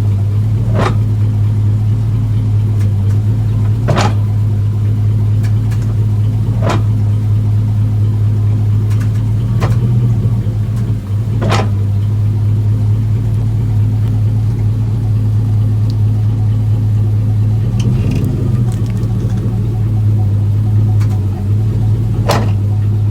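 Chevy Silverado pickup's engine idling steadily, with a handful of sharp clicks at irregular moments.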